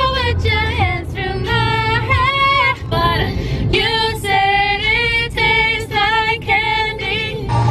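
Pop song with a woman singing held, sliding notes over a steady bass line.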